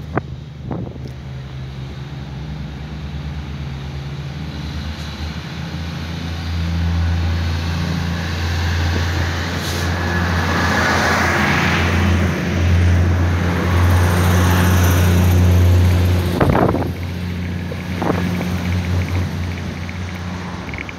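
Irish Rail 22000 Class diesel railcar passing close by. Its engines give a steady low drone that builds, holds for several seconds, then fades, with a rush of wheel noise swelling and dying away as the carriages go by. Two sharp knocks come near the end.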